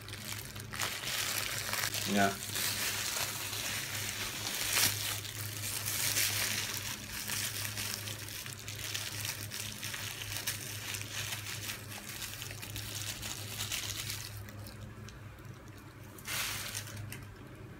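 Plastic bag of marinated meat crinkling and rustling as hands squeeze the air out and twist it closed to make it airtight. The rustling dies down near the end, with one more brief rustle.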